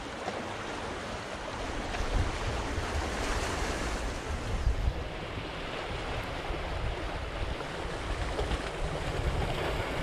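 Sea waves washing and splashing against the concrete tetrapods of a breakwater, with wind gusting on the microphone as a low rumble.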